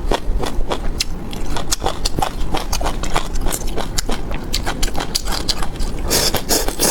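Close-miked crunchy chewing and biting, a quick irregular run of crisp crunches, denser near the end.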